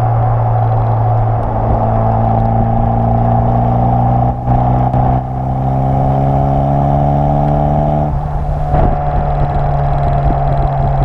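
Renault F4RT 2.0 turbo four-cylinder engine and exhaust of a Twingo GT running on the road. The engine note rises slowly, breaks briefly about four seconds in, then climbs again until it drops away just after eight seconds.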